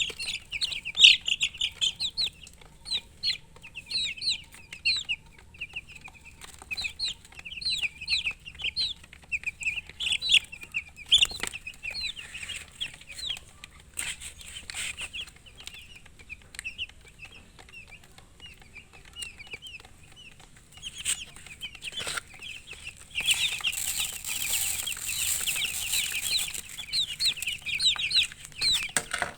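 Baby chicks peeping continuously: many short, high-pitched, falling peeps, several a second. Near the end, a few seconds of rustling noise sit under the peeps.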